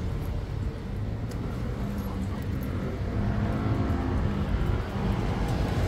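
City street traffic, with a car engine running close by.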